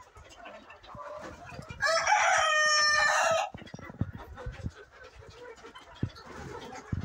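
A Fayoumi rooster crowing once, a loud call of about a second and a half that starts about two seconds in, over the background clucking of a flock of Fayoumi chickens.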